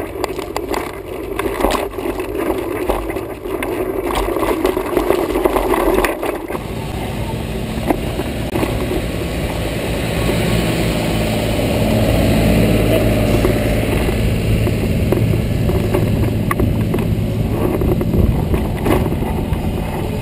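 Rattle and wind noise as a bike rides over a rough track. About six seconds in this gives way to the steady low hum of a fire truck's diesel engine running close by, which swells slightly and holds.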